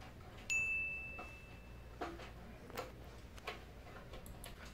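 A single sharp metallic ring about half a second in, fading over about a second and a half, then three separate sharp clicks and a couple of faint ticks: hand tools at work on control-panel wiring while the wires are trimmed to length.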